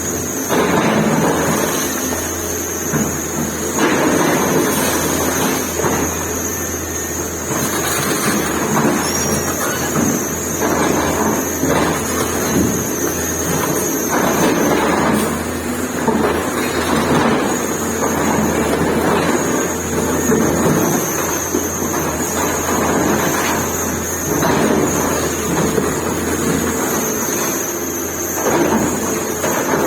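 Excavator's diesel engine running steadily during building demolition, with a thin high whine above it. Irregular rumbling, crashing surges of breaking and falling rubble come every second or two.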